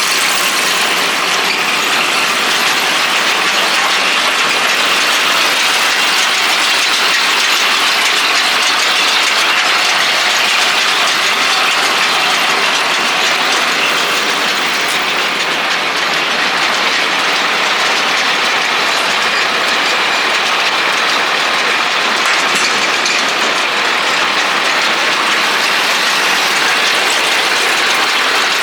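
John Deere 561M round baler running, its driveline and mechanism making a steady, dense mechanical clatter.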